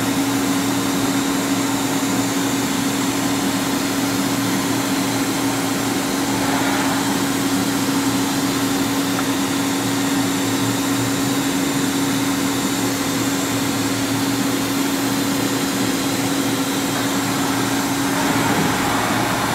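LK Machinery TC-1200 vertical CNC drill-tap center running in rigid tapping mode: a steady machine hum with one constant mid-pitched whine that stops shortly before the end.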